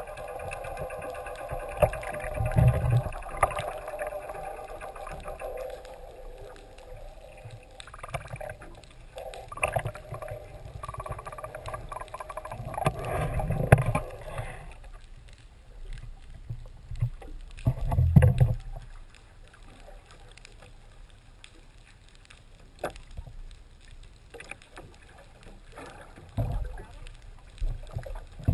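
Sound on a small fishing boat: a steady motor hum that stops about halfway through, with low buffets of wind and water thumps throughout.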